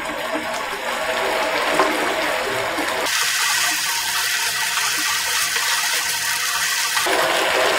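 Vermicelli boiling hard in water in a nonstick frying pan on a high flame: a steady bubbling hiss, a little thinner from about three seconds in until near the end.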